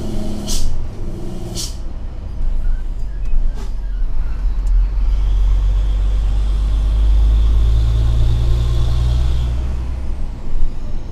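Inside a heavy truck's cab, the diesel engine runs with a low drone. Two short, sharp air hisses come about half a second and a second and a half in. From about five seconds the drone grows louder and steadier and eases off near the end, as the truck coasts downhill held back by the engine rather than the brakes.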